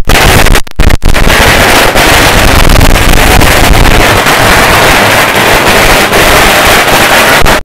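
A long string of firecrackers going off: separate sharp bangs in the first second, then merging into a continuous rapid crackle, very loud.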